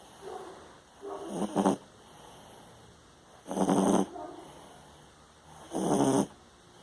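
A sleeping pet snoring on a sofa: three snores, about two and a half seconds apart, with quieter breathing between them.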